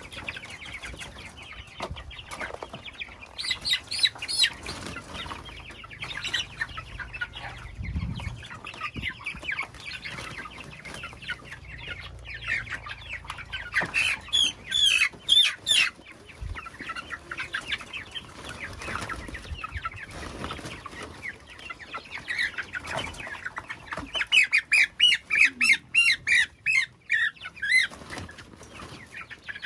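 Domestic chickens clucking, with two runs of rapid, loud calls, one about halfway through and one near the end.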